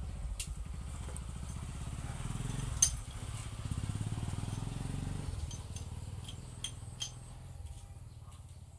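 A low engine rumble in the background that fades after about five seconds. Over it come a few sharp clicks and one louder knock about three seconds in, as angle grinder parts are fitted together by hand.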